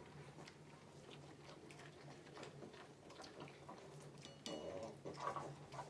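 Faint eating sounds: small clicks and rustles of hands tearing samosas over steel plates, over a steady low hum. About four seconds in there is a short high chirp, followed by a few louder low sounds near the end.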